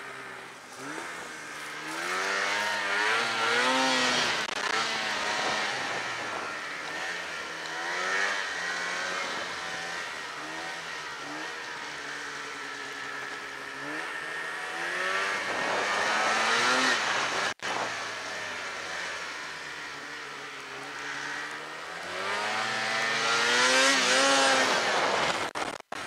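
Snowmobile engine under way, its pitch climbing and dropping several times as the throttle is worked. It revs hardest around 3 s, 16 s and 23 s in, over a steady hiss.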